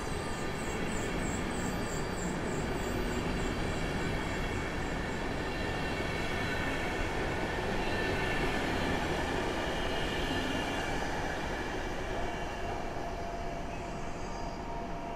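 PKP Intercity passenger train pulling out, its carriages rolling away on the rails with a steady rumble. Faint high squeals repeat over the first few seconds, and a steady whine sets in near the end.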